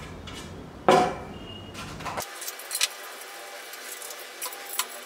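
Small metal hardware clicking and clinking as a bolt and T-nut are fitted into the end hole of a metal CNC machine leg, with one sharper knock about a second in and a few light clinks after.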